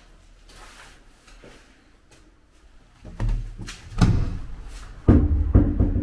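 A series of heavy knocks and thuds, starting about three seconds in and loudest near the end.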